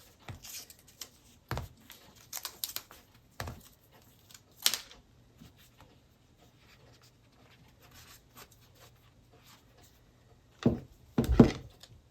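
Hands working a headphone and a replacement earpad: scattered scratching and rubbing noises, then a few louder dull bumps near the end as the pieces are set down or pressed.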